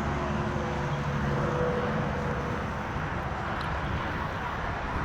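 Distant radio-controlled model boat engines running out on the water, a steady buzzing drone over a constant outdoor background noise.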